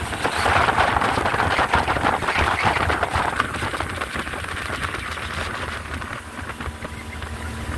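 Small motorboat under way: wind buffets the microphone in rapid crackles over the low running of the boat's motor and water rushing past the hull. The crackle eases about three seconds in.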